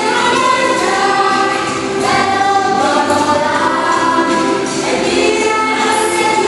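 Children's school choir singing a song in long held notes.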